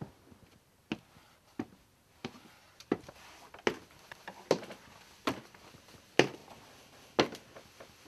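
A series of about nine sharp knocks, a little under a second apart, with the spacing slowly widening.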